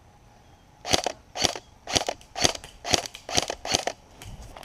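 Airsoft gun firing seven single shots at a steady pace, about two a second, each a short sharp crack.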